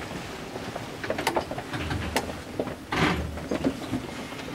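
Scattered clicks and knocks in the cab of a monorail train standing at the platform, with a short hiss about three seconds in.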